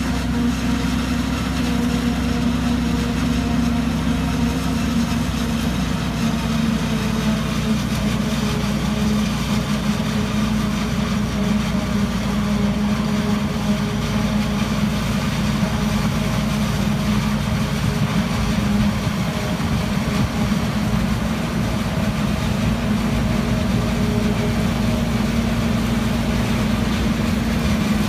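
A John Deere 7750 self-propelled forage harvester chopping maize, with a tractor-drawn silage trailer running alongside: a loud, steady heavy-engine drone with a hum that holds its pitch.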